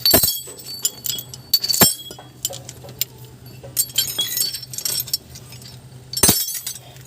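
Metal tools and parts clinking and knocking against each other, with three sharper strikes (one right at the start, one near two seconds, one past six seconds) and lighter clicks between them, over a faint steady low hum.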